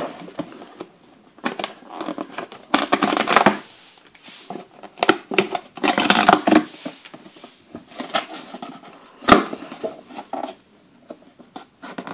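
Cardboard toy box being opened by hand: irregular scraping and rustling as the tucked end flap is pried and pulled free, with scattered sharp clicks, the sharpest about nine seconds in.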